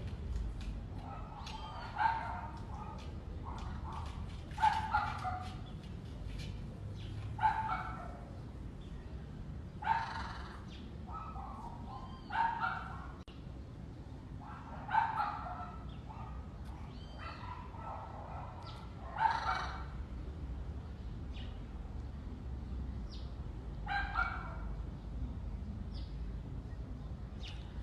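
Short animal calls repeated about every two to three seconds, over a steady low rumble.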